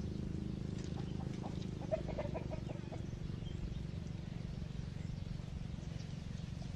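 A short run of quick, chirping animal calls about two seconds in, over a steady low hum.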